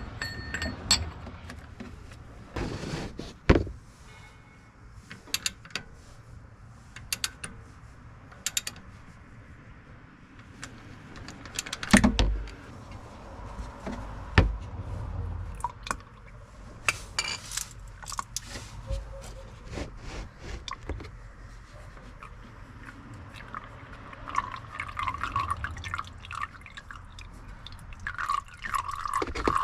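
Engine oil trickling and dripping during an oil change, with scattered clicks and knocks from tools and parts and a louder thump about twelve seconds in. The trickling grows stronger near the end.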